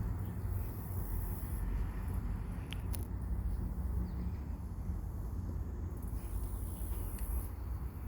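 Outdoor ambience: a low rumble of wind on the microphone, with a faint high hiss that comes and goes and a brief chirp about three seconds in.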